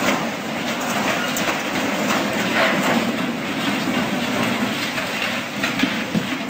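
Loud, steady rush of fast-flowing floodwater, broken by irregular knocks and crashes as a boat is driven against a bridge by the current.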